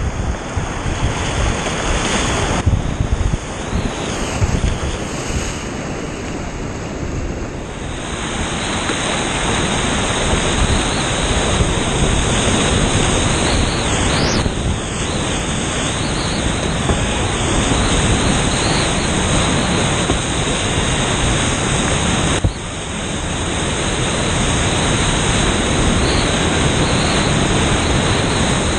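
Whitewater rapids rushing and splashing close around an open canoe, water breaking over the bow and hitting the hull and the microphone. The rushing is loud and steady, with its tone changing abruptly a few times.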